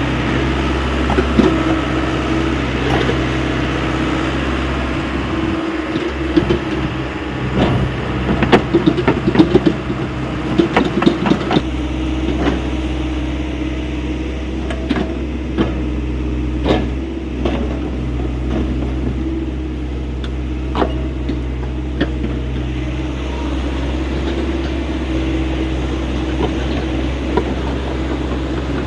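Hyundai 85A excavator's diesel engine running steadily at work. A burst of clanks and rattles comes from about six to twelve seconds in, with a few single knocks later.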